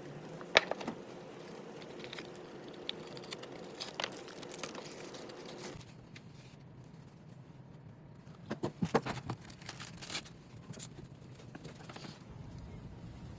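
Hands handling a cardboard box and a round USB speakerphone: rustling of packaging with scattered light clicks and taps, and a quick cluster of knocks about nine seconds in. A steady hum sits under the first half and cuts off suddenly about six seconds in.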